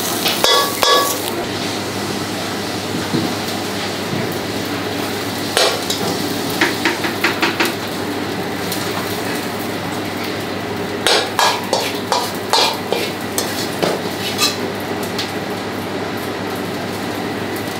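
A metal ladle clanking and scraping against a wok in three bursts as crispy pork is stir-fried, over a steady sizzle and kitchen noise.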